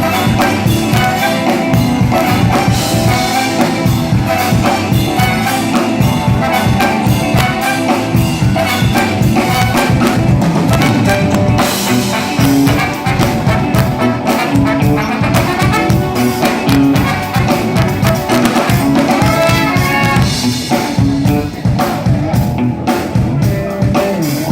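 Music with brass horns and a drum kit playing.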